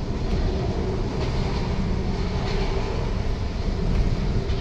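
Steady rumble of a French regional passenger train running, heard from inside the passenger carriage, with a faint steady hum.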